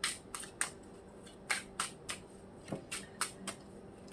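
Tarot cards being shuffled by hand: a string of short, crisp snaps, irregularly spaced, two or three a second.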